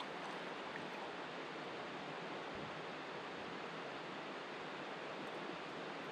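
Steady rush of a flowing river.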